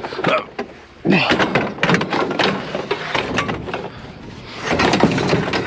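Metal chairs being handled and laid in a trailer: a string of clanks, knocks and rattles, busiest about a second in and again near the end.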